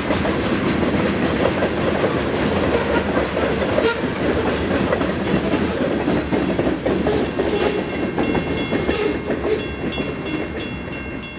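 Freight train's covered hopper cars rolling past, steel wheels clacking over rail joints, fading as the last car goes by. In the last few seconds a regular ringing beat, about three strikes a second, comes through.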